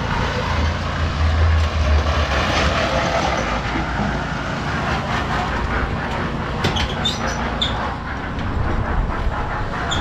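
Portable drum concrete mixer running, a steady low churning rumble of its motor and turning drum. A few short sharp knocks come about seven to eight seconds in.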